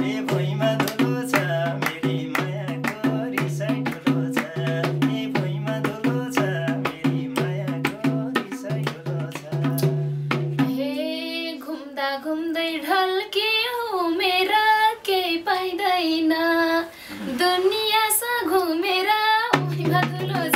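Nepali dohori folk music: a fast, even drum rhythm over a repeating bass line. About ten seconds in the drums and bass drop out, leaving a long, wavering melody line, and the rhythm comes back near the end.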